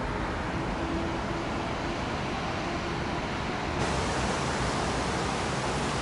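Steady outdoor ambient noise, an even hiss with no distinct events. About four seconds in it changes to a brighter hiss.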